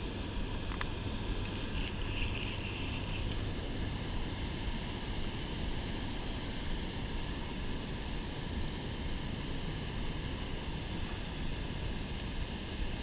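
Steady rushing of river water pouring over a spillway, mixed with wind on the microphone. A few faint clicks about two to three seconds in.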